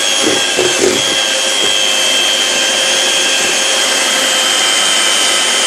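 De'Longhi electric hand mixer running steadily, its beaters whisking cake batter in a bowl, with a constant high motor whine; it cuts off suddenly at the very end.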